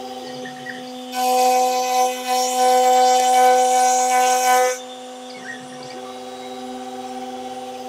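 1 kW milling spindle (Stepcraft MM-1000) on a Stepcraft M1000 CNC running with a steady whine while a facing cutter surfaces wooden boards. About a second in, the cutting noise rises sharply and stays loud for roughly three and a half seconds as the cutter sweeps through the wood, then drops back to the spindle alone.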